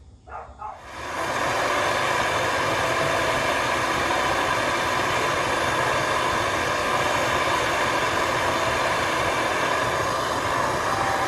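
Handheld brazing torch lit about a second in, its flame then burning with a loud, steady roar as it heats the filter-drier joint on an air-conditioner's pipework to change the drier.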